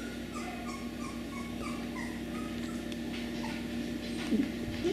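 Beagle puppies whimpering: many short, high squeaks, with a louder whine about four seconds in, over a steady low hum.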